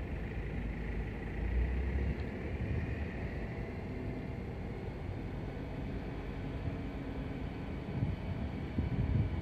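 Steady low rumble with a faint hum, with wind buffeting the microphone about a second and a half in and again near the end.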